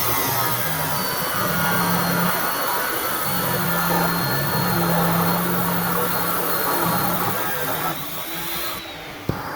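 Power grinder running against high-carbon steel bars to clean them bright for forge welding: a steady hissing grind with a thin high whine, cutting off near the end.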